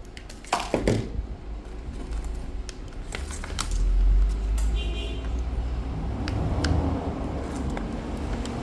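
Handling noise from a laptop charger and its cable: scattered plastic clicks and knocks, with a low rumble swelling in the middle.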